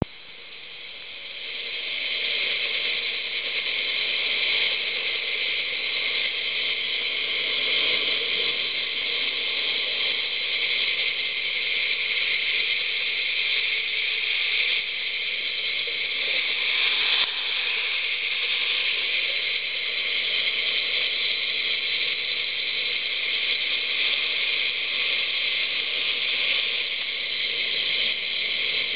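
Steady hiss recorded underwater, with a fainter hum beneath it, fading in over the first two seconds and then holding level.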